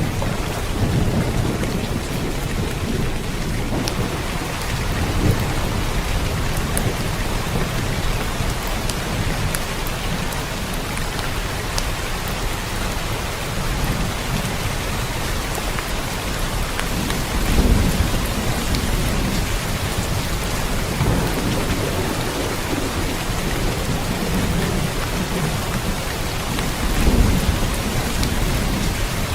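Steady rain with low rumbles of thunder. Two louder rumbles swell up, one a little past halfway and one near the end.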